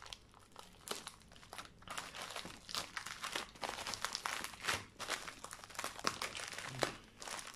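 White plastic packaging wrap crinkling and rustling as hands fold and pull it open, in a steady run of irregular crackles.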